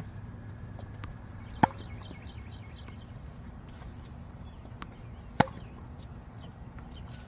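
Tennis racket striking a ball twice, two sharp pops a little under four seconds apart, over a faint steady low hum.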